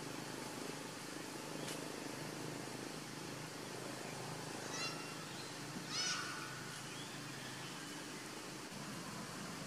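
Steady low background rumble with two short, high chirping animal calls, about five and six seconds in, the second louder.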